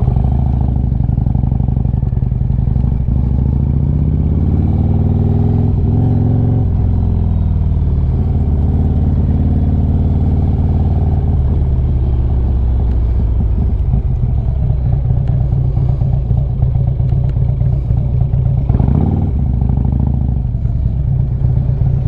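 Harley-Davidson Street Glide's V-twin engine pulling away, its pitch climbing as it accelerates a few seconds in, then dropping as it slows. It settles into a steady idle for the last several seconds.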